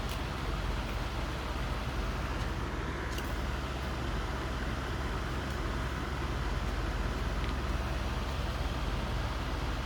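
Robot vacuum running: a steady whir of its motor and brushes, with a faint click about three seconds in.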